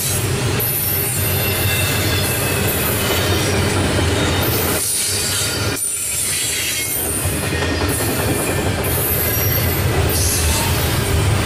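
Loaded double-stack intermodal well cars rolling past: a steady rumble of steel wheels on rail, with thin high-pitched wheel squeal coming and going.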